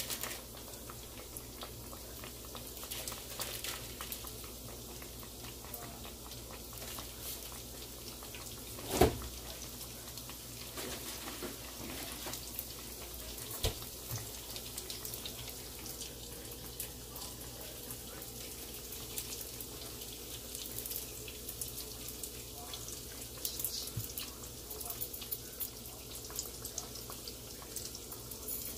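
Hot canola oil sizzling and crackling steadily around dough-wrapped Oreos deep-frying in a pan. A sharp knock about nine seconds in, and a smaller one a few seconds later.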